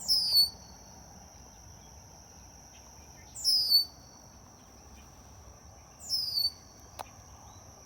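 A bird calling three times, about three seconds apart, each a short call falling in pitch, over the steady high drone of insects.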